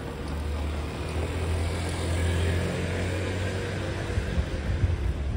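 Street traffic: a motor scooter passing close by, its engine and tyre noise swelling to a peak about two to three seconds in and then fading, over a steady low rumble.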